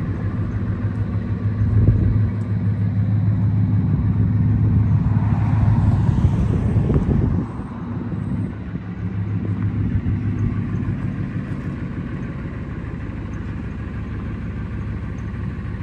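1998 Ford F-150 pickup's engine idling steadily. A brief rushing noise comes through about six seconds in.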